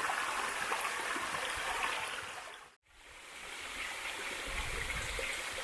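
Mountain valley stream flowing, a steady rush of water. Just under halfway through it fades out to a moment of silence and fades back in.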